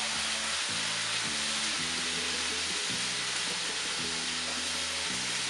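Marinated chicken sizzling in a hot skillet: a steady frying hiss.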